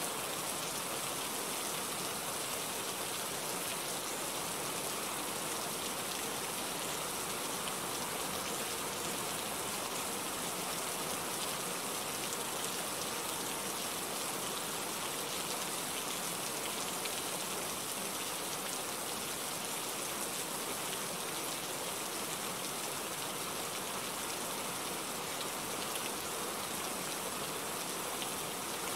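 Steady rain falling: an even hiss of many drops that holds without a letup.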